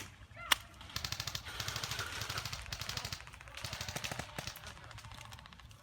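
Airsoft electric guns firing on full auto: a sharp snap about half a second in, then a long rapid burst and, after a short break, a second burst.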